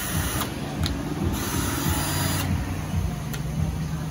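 Cordless impact drill's motor run in short trigger pulls: a whir that stops about half a second in and runs again for about a second, a second and a half in.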